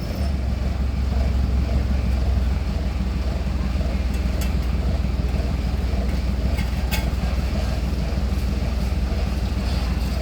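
Heavy road-construction machinery running steadily, a loud low engine sound with no change in pace, and a couple of faint clicks or knocks about four and a half and seven seconds in.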